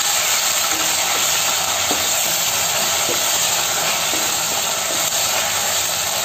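Sliced onions and ginger-garlic paste sizzling steadily in hot oil in a stainless-steel pan, with a few light scrapes of a wooden spatula stirring them.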